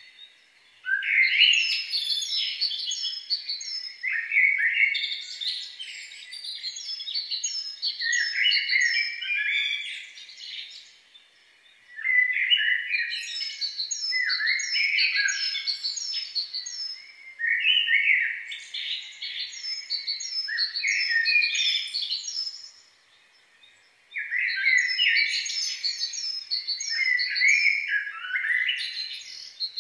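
Songbirds singing: busy bouts of warbling and twittering with quick runs of high chirps, breaking off twice for about a second.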